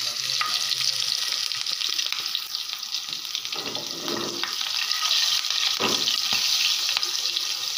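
Cumin seeds, whole dried red chillies and slit green chillies sizzling in hot ghee in a frying pan, a steady high hiss: a tadka (tempering) being fried. A few soft knocks come in the middle.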